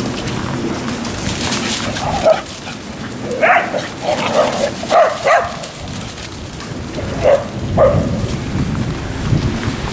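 Dogs barking: about eight short barks in quick clusters, starting about two seconds in and stopping near the end.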